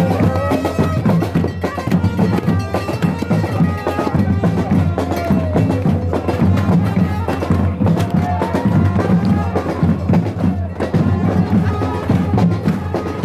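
Traditional-sounding music: a steady low drone under a sliding, wavering melody, with drum and percussion strikes keeping a beat throughout.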